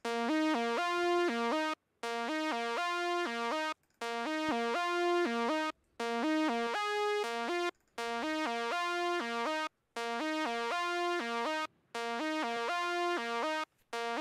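A lone synthesizer lead line, the song's doubled lead synth part, playing a short melodic phrase of stepping notes. The phrase repeats about every two seconds with a brief silent gap between repeats.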